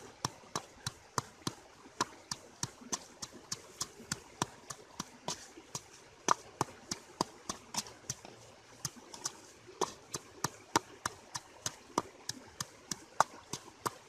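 A round river stone used as a pestle, knocking in a mortar as it pounds chili, herbs and salt into a paste. The strikes are sharp and steady, about three a second.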